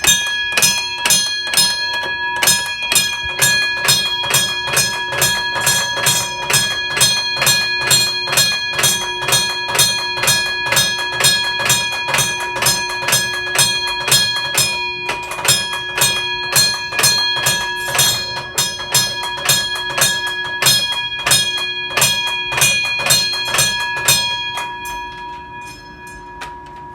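Fire alarm bell ringing with a rapid, even train of strikes over a steady set of ringing tones; it stops about 24 seconds in and the ring dies away over the next two seconds.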